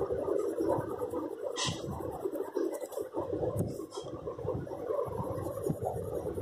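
A white pastel crayon rubbed back and forth over pastel-covered paper, a continuous scratchy scraping, with a short sharper scratch about a second and a half in.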